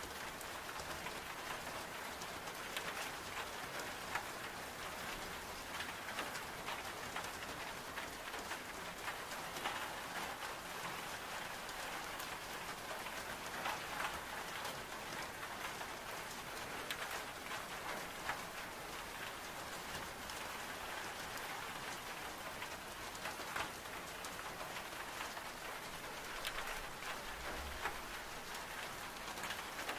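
Steady rain pattering on window glass, mixed with scattered small crackles from a wood-burning stove fire.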